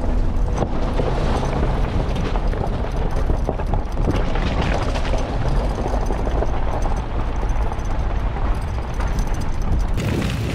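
Suzuki four-wheel drive driving slowly over a rough gravel track: a steady low rumble of engine and body with the tyres crunching on loose stones. A brighter hiss comes in near the end.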